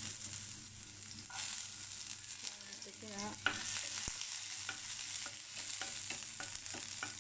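Chopped onions sizzling in hot oil in a frying pan, stirred with a wooden spatula that scrapes and taps against the pan, with a sharper knock about three and a half seconds in.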